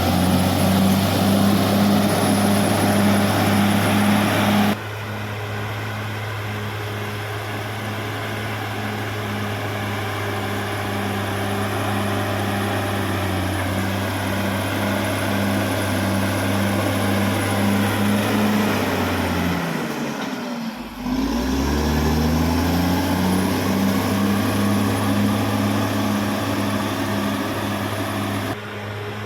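Caterpillar D6R XL bulldozer's diesel engine running steadily, its level dropping abruptly about five seconds in. About two-thirds of the way through the engine speed sags briefly and picks back up.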